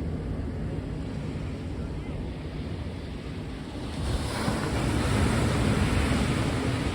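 Ocean surf with wind buffeting the microphone as a low rumble; about four seconds in, a wave breaks and washes in as a louder, broad hiss.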